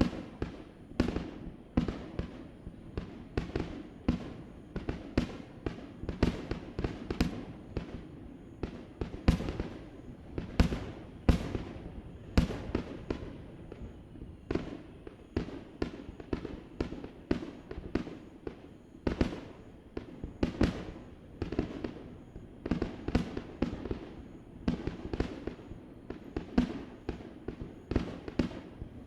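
Aerial fireworks shells bursting in quick, irregular succession, one or two booms a second, heard from across the harbour. Each bang trails off in an echo.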